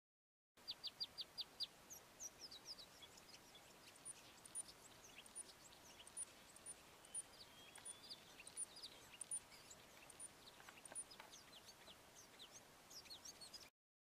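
Malachite sunbird singing: a quick run of about five sharp high notes, then a long stream of high chirps and twitters.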